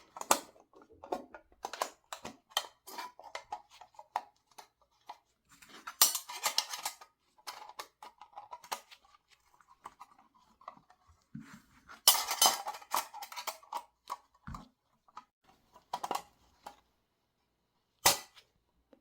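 Small metal parts clinking and clicking as they are handled and fitted together, with two longer scraping stretches and a couple of dull knocks.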